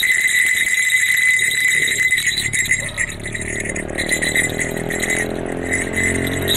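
Small metal jingle bells on a costume mask's horns ringing and jingling steadily, turning choppier about three seconds in as a low, steady engine hum joins them.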